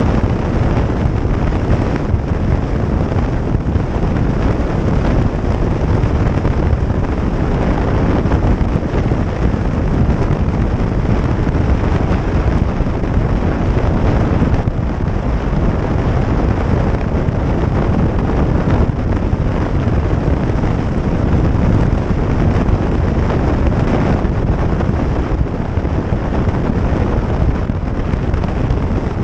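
Steady wind rush over the microphone of a motorcycle riding at speed.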